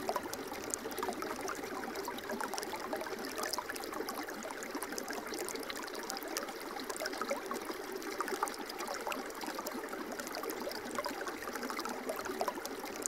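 Shallow water running and trickling through a small stone opening: a steady splashing wash with many small droplet clicks and gurgles.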